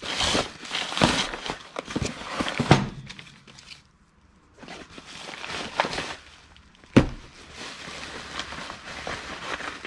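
Bubble wrap, paper and plastic packaging being pulled off a parcel by hand, rustling and crinkling in bursts with a short lull in the middle. A single sharp knock about seven seconds in as a cardboard box is set down on the bench.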